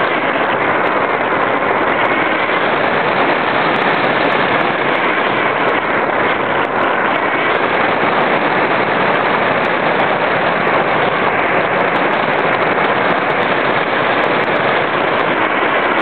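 Steady, loud rush of airflow over the onboard camera of an RC glider in flight, with faint scattered ticks.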